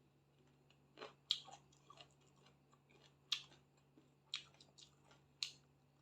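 A person chewing chicken and rice close to the microphone, with a few sharp crunchy clicks spaced about a second apart.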